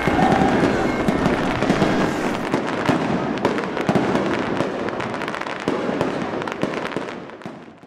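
Fireworks bursting and crackling, a dense run of sharp pops that fades out at the very end.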